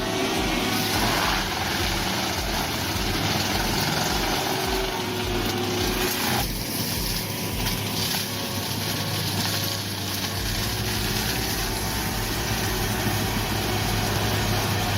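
Heavy machine's engine running steadily with a low hum and a regular low pulsing. The character of the sound changes abruptly about six seconds in.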